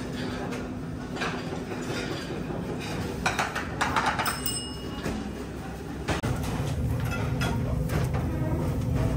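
Kebab-restaurant background noise: a steady hum with scattered clatter and a brief metallic clink about four seconds in. About six seconds in it changes abruptly to a louder, steady low rumble at the charcoal grill.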